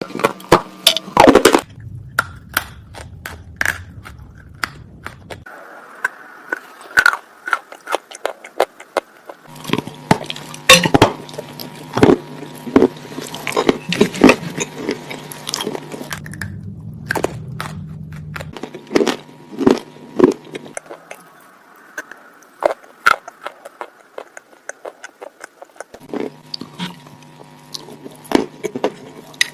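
Edible chalk and clay being bitten and crunched close to the microphone: many sharp, loud crunches at irregular intervals, over a low hum that comes and goes.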